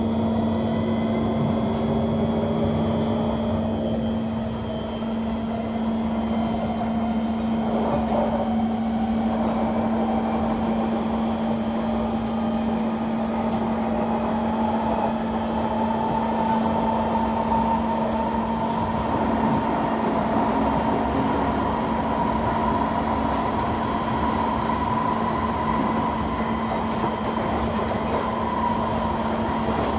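Kawasaki C151 MRT train running between stations, heard from inside the car: a steady hum under wheel-on-rail rumble, with the traction motors' whine rising slowly in pitch through the first half as the train gathers speed, then holding steady.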